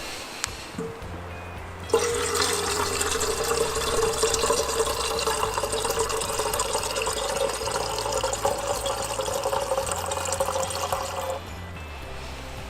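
Water being poured, a steady rushing that starts abruptly about two seconds in and stops about nine seconds later, over background music.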